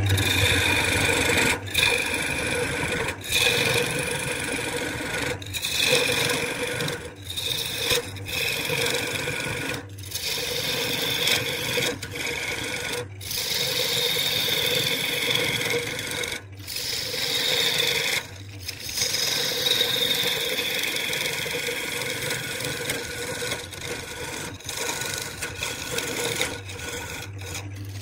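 Wood lathe spinning a log workpiece with a tool held against it, a continuous rasping scrape with steady tones running through it, broken by short breaks every second or two as the tool comes off the wood.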